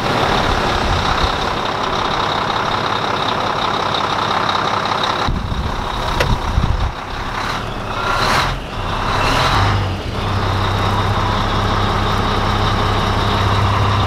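Volvo semi truck's diesel engine idling. The sound is uneven for a few seconds in the middle, then from about ten seconds in a steady low hum takes over.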